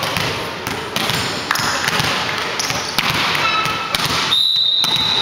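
Chatter and shouts from players and spectators echoing in a sports hall, with the thuds of a volleyball bounced on the wooden court. About four seconds in, a steady high referee's whistle starts and is held for over a second, the signal to serve.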